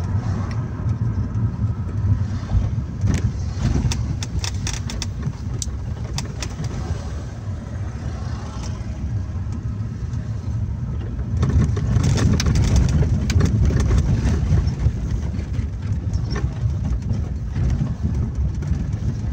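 Road noise inside a moving car: engine and tyres running steadily, with scattered clicks and rattles. It grows louder for a few seconds about two-thirds of the way through.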